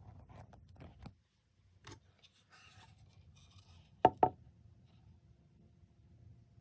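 Faint rustling, then two sharp knocks in quick succession about four seconds in, each with a brief ring.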